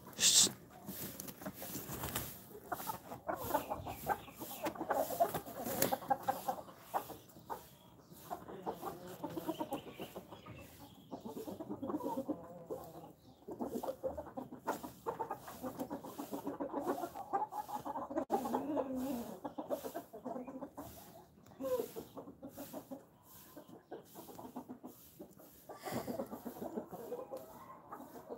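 A flock of desi chickens clucking on and off, several birds at once, with short quieter spells between bouts. A brief sharp high-pitched sound comes right at the start.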